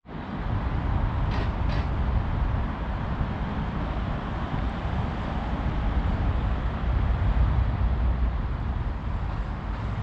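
Steady low rumble of road traffic outdoors, with two faint short high sounds about a second and a half in.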